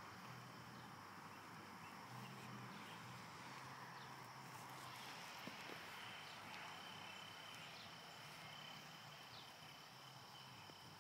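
Faint outdoor evening ambience: insects trilling steadily in two thin high tones, with a few faint scattered clicks.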